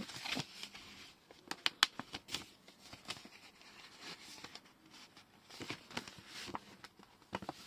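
A paper envelope being handled, rustling lightly, with a few sharp clicks about one and a half to two and a half seconds in.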